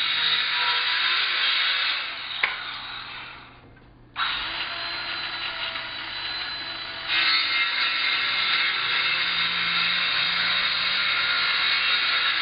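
Handheld power saw cutting wood, ripping through two clamped boards at once. The saw runs down about two seconds in, then starts again sharply about four seconds in and keeps cutting, louder from about seven seconds in.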